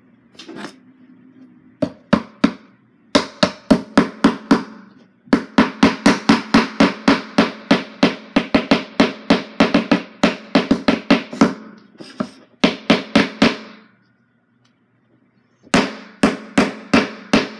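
Hammer rapidly driving small nails into the pieces of a wooden kit: runs of quick, loud strikes, about five a second, broken by short pauses.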